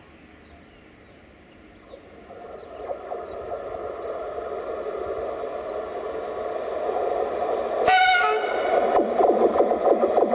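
Romanian LE5100-type electric locomotive hauling passenger coaches on approach, its running noise growing steadily louder. About eight seconds in it sounds one short horn blast, then a rapid clatter of wheels over rail joints sets in as it draws near.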